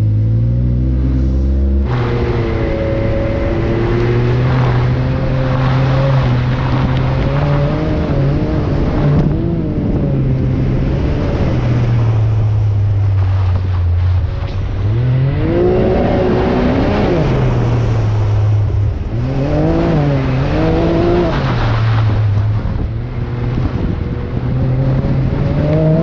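Side-by-side UTV engine under load, throttle opened about two seconds in, then revving up and down as the machine works up a rocky climb, with two stronger rev swells in the latter half.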